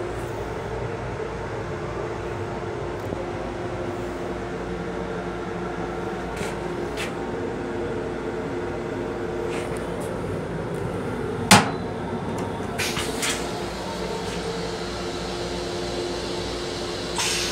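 Steady hum of an M7 commuter railcar running, heard inside its small restroom, with a few light knocks and one loud sharp clack about two-thirds through as the toilet seat is raised.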